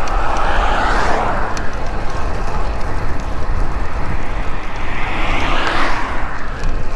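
Two motor vehicles passing the bicycle on the road, one about a second in and one near the end, each a rising and falling tyre-and-engine rush, over a steady rumble of wind on the microphone from riding.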